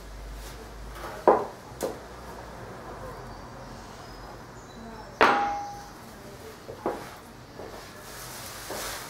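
Plastic dustpan and hand brush knocking against a wooden floor while sweeping up spilled white powder. There are four sharp knocks, the loudest about five seconds in with a short ring after it.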